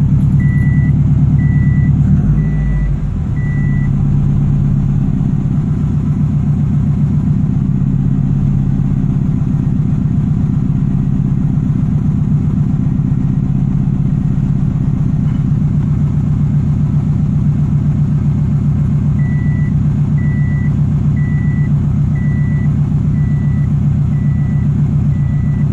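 A 2007 Subaru Impreza WRX STI's turbocharged flat-four, rebuilt with forged pistons, idling as it warms up after a cold start, heard inside the cabin; the idle dips briefly about two seconds in. An electronic chime beeps about one and a half times a second during the first few seconds and again through the last quarter.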